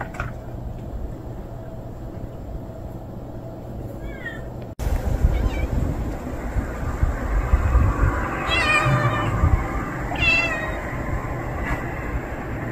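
Stray cats meowing: a faint short meow about four seconds in, then two louder, wavering meows about eight and a half and ten seconds in, over a steady low rumble.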